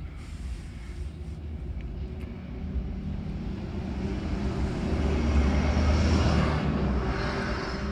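A passing vehicle's rumble, swelling slowly to a peak about six seconds in and then fading.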